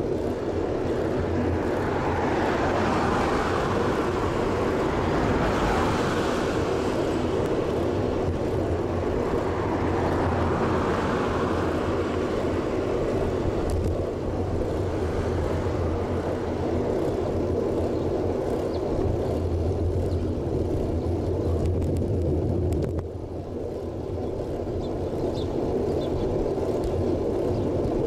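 Riding noise from a bicycle-mounted action camera at about 25 km/h: a steady low rumble of wind on the microphone and tyres on the road, with a couple of louder swells in the first half.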